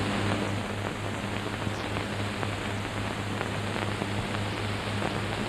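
Steady hiss with a low hum and occasional faint clicks: the background noise of an old film soundtrack.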